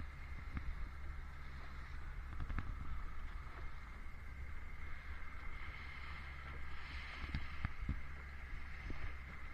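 A panga's outboard motor running steadily at trolling speed, a low hum with a steady whine on top, mixed with wind on the microphone. A few faint knocks come through over it.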